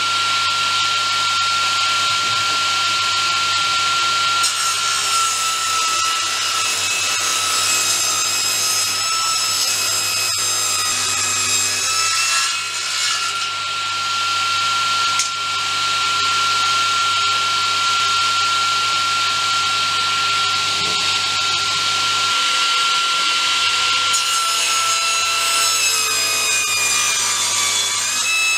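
Table saw running with a steady high whine, ripping wooden boards. During two cuts, one from a few seconds in lasting about eight seconds and another starting near the end, the pitch sags slightly as the blade takes the load.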